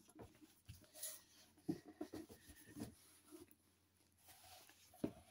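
Faint handling of a hardcover book: hands shifting and turning it, with a few soft knocks and rustles, the loudest a single knock about five seconds in.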